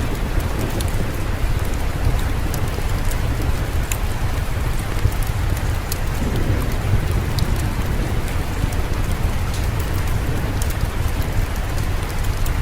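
Steady rain falling, over a constant low rumble, with scattered sharp ticks on top.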